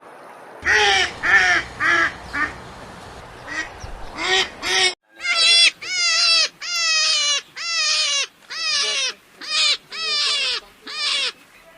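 Ducks quacking in repeated calls, each about half a second long and falling in pitch: a short run in the first half, then a steadier series of about ten quacks after a brief break.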